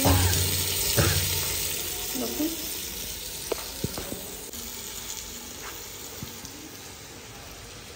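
Diced potatoes and masala sizzling in a clay pot over a wood fire as cubes of kaddu are tipped in. There are a couple of soft thuds in the first second and a few light knocks later on, and the sizzle slowly dies down.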